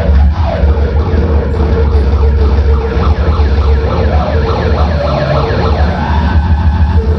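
Noise-music band playing live and loud: a wavering, siren-like electronic tone held over a heavy low rumble, with rapid short falling chirps above it through the middle.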